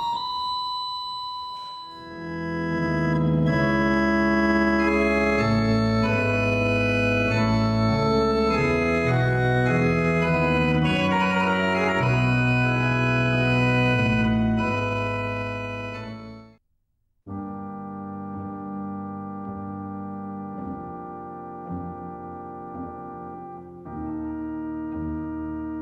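Pipe organ played loud with full sustained chords over a deep bass, ending abruptly about 16 seconds in. After a brief silence, quieter music of slow held chords follows.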